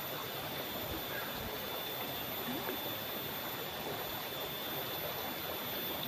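Shallow river water flowing steadily over and around rocks, an even, unbroken rushing. A thin, faint high tone runs steadily underneath.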